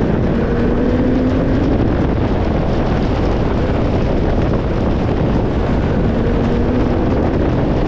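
Car accelerating hard: its engine note climbs in pitch near the start and again near the end, mostly buried under heavy wind rushing over an outside-mounted microphone.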